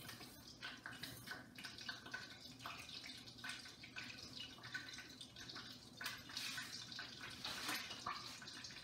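Breaded chicken cordon bleu rolls frying in olive oil in a skillet: a faint, steady sizzle with fine crackles.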